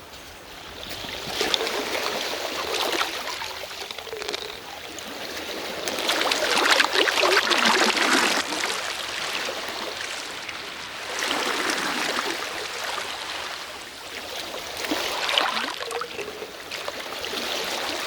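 Sea waves washing in and draining back over the shore, a water noise that swells and fades every few seconds, about five times.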